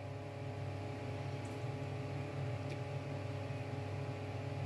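A steady hum runs throughout, with a few light clinks of a spoon as it stirs hot milk in a steel pot.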